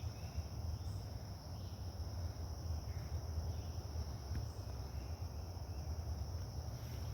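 Steady chorus of crickets, a continuous high-pitched trill, over a constant low rumble.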